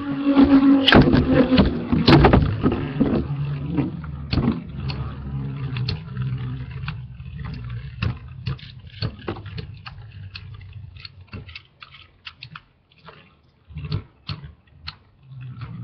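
Two metal Beyblade spinning tops, L-Drago Destroy and Cosmic Pegasus, are launched into a plastic stadium with a loud rush and hits in the first two seconds. They then spin with a steady low whir that fades out as they slow, while sharp clacks of the tops striking each other and the bowl come more and more often.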